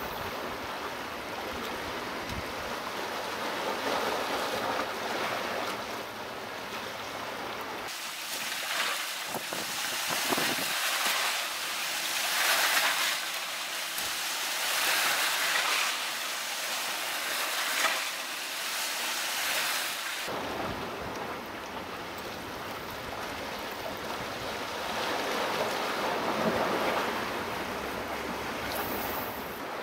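Rough sea surging and washing against a rocky shoreline, swelling and falling every few seconds, with wind buffeting the microphone.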